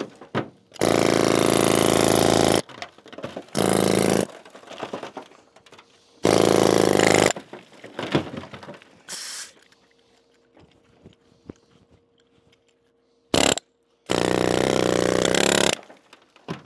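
Pneumatic air hammer with a chisel bit chipping at a conglomerate boulder. It runs in five loud buzzing bursts of up to about two seconds, one of them very brief. The bursts are separated by pauses, with a longer quiet stretch in the middle.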